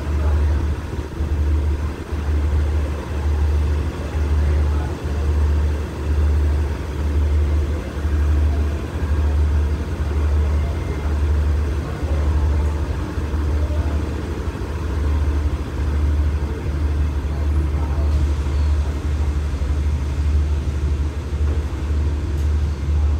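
Wind buffeting the microphone: a loud low rumble that pulses unevenly.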